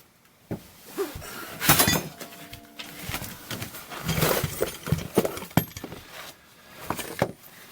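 Irregular clinks and knocks of metal parts and tools being handled, the loudest about two seconds in and a short rattle about four seconds in.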